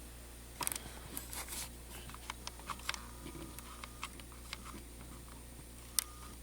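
Light, scattered clicks and taps of small parts being handled and fitted, a quick cluster of them about half a second in and single ticks after.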